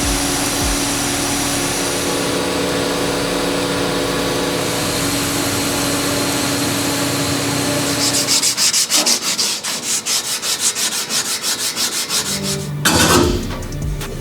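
A power tool runs steadily on metal with a grinding hiss for about eight seconds. It then gives way to fast, rasping back-and-forth strokes, several a second, like metal being sanded by hand.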